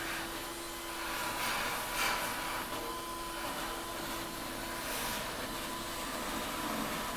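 Steady rushing noise of a running machine with a constant faint hum, swelling briefly about two seconds in and again about five seconds in.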